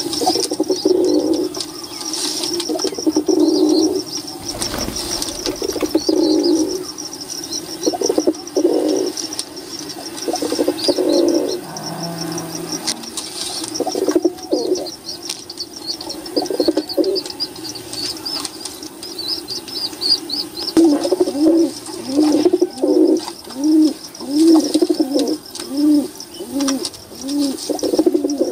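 Domestic pigeons cooing over and over, low calls that come in a quick regular series of about three every two seconds near the end. A brief flutter of wings about five seconds in, and high bird chirping underneath.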